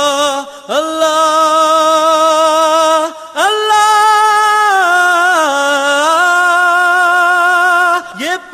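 A solo voice singing an Urdu devotional song with no audible accompaniment, holding long wavering notes that slide slowly in pitch, in three long phrases split by short breaths.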